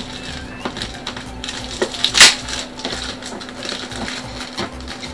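Scissors snipping and scraping through packing tape and plastic wrapping on a cardboard shipping box, with crinkling plastic and small clicks; one louder, longer scrape a little over two seconds in.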